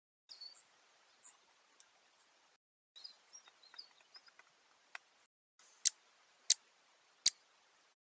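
Great spotted woodpecker at a plastic feeder dish, with scattered light ticks and then three sharp knocks about 0.7 s apart near the end, its bill striking the dish and seed. Brief high bird chirps come in between, and the sound breaks off briefly twice.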